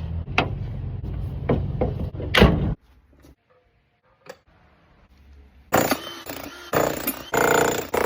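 A steady low hum with scattered clicks stops abruptly about three seconds in; after a short near-silence, a jackhammer starts up loudly about six seconds in, hammering to break up the concrete slab.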